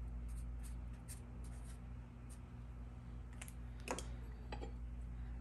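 Faint scratching of a pen writing on a notepad, then a couple of light clicks about four seconds in as a hand handles the aluminium gauging bar, over a low steady hum.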